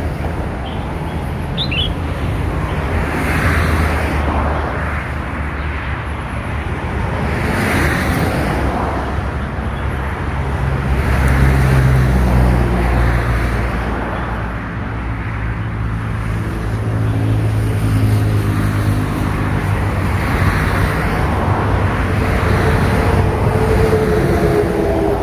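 Steady low rumble of road traffic, swelling and easing several times, with a steady low hum underneath.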